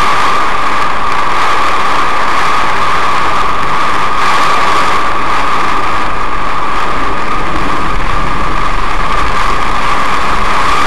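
Steady, loud rush heard from inside a moving car in a cloudburst: heavy rain on the car's body and tyres on the streaming wet road.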